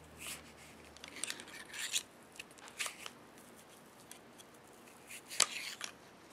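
Cleaning rod pushing a cloth patch through the chambers of a Smith & Wesson 360SC five-shot revolver cylinder: several short scraping rubs, with a sharp click near the end.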